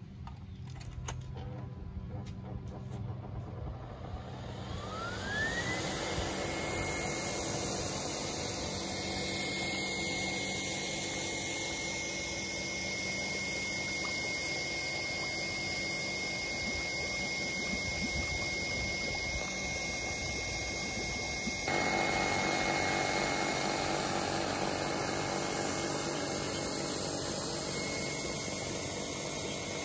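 A restored scallop-type ring air blower's electric motor is switched on and spins up, its whine rising over a couple of seconds and then holding one steady high tone. A steady rush of air goes with it, with air from its hose bubbling up through pond water, and the rush grows louder about twenty-two seconds in.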